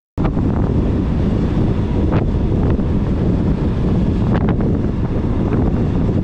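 Wind rushing over the microphone of a moving motorcycle, a loud steady noise with road and engine noise underneath, cutting in suddenly at the start, with a few brief knocks.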